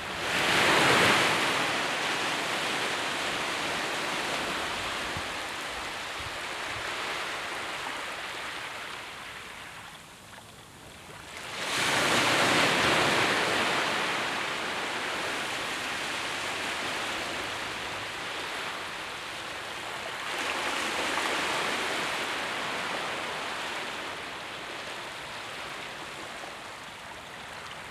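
Surf washing on a shore: three waves swell in quickly, near the start, about twelve seconds in and about twenty-one seconds in, each hissing and fading slowly over several seconds.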